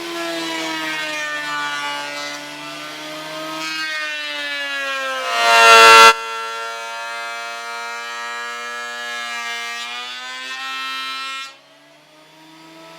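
Electric surface (thickness) planer running with a high whine while the dust collector draws on its shroud. About five seconds in the motor's pitch sags and a loud, harsh cutting noise lasts under a second as a board is planed, then the whine climbs back. The planer's noise drops away sharply near the end.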